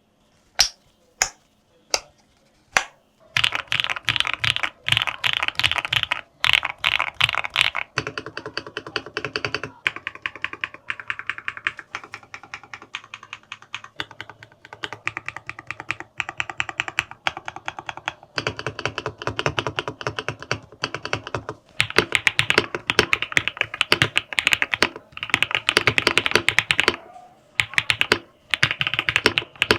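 ElecFox Gen 75 mechanical keyboard being typed on: a few single key presses, then fast continuous typing with brief pauses, the keys clacking sharply.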